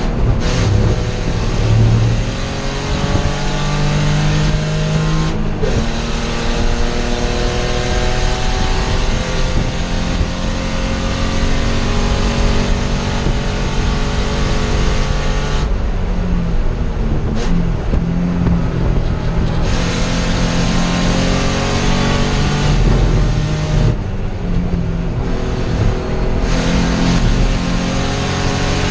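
Spec E30 race car's BMW 2.5-litre inline-six heard from inside the cabin under hard acceleration, engine pitch climbing steadily with each pull and dropping back a few times at gear changes or lifts, over constant wind and road noise.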